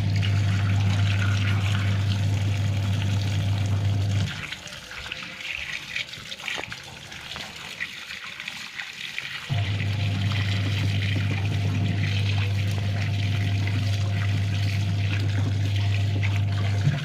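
Running, trickling water with a steady low electric hum alongside it; the hum cuts off about four seconds in and starts again about five seconds later.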